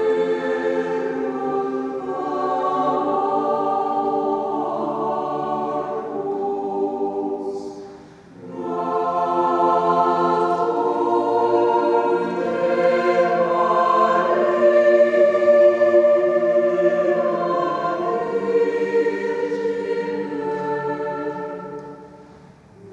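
Mixed chamber choir singing unaccompanied English Renaissance sacred polyphony, sustained chords in long phrases. The sound falls away briefly between phrases about eight seconds in and again near the end.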